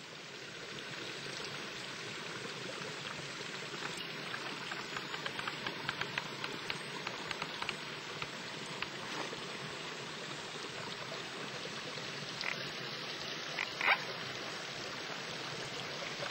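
Steady rush of a nearby forest stream, with scattered small clicks and a few louder ones near the end.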